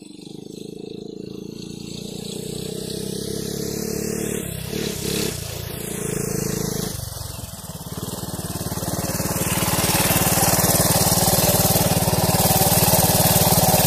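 Honda ATC 125M three-wheeler's single-cylinder four-stroke engine running as it is ridden toward the camera, growing louder as it comes closer, with a brief easing off about seven seconds in, and loudest near the end as it passes close by.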